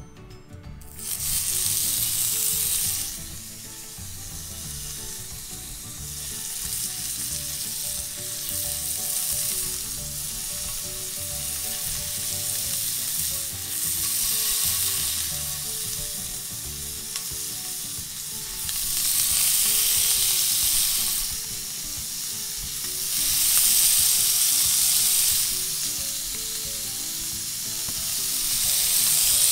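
Garlic-marinated cubed beef sizzling in a hot frying pan. The sizzle starts abruptly about a second in and swells louder several times as more pieces are dropped in.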